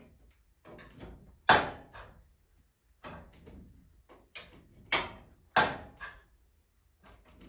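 Several sharp knocks and clatters at uneven intervals, the loudest about one and a half seconds in.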